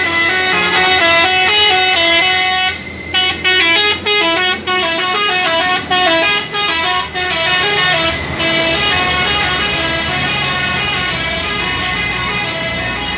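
A dump truck's telolet horn plays a quick tune of stepping notes. It breaks off briefly several times between about three and eight seconds in, with a low engine running underneath.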